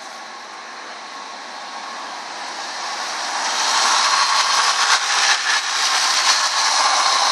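Rushing whir from the engine bay of a 2004 Cadillac Seville running after its coolant temperature sensor was replaced. It swells over about the first four seconds and then holds loud and steady.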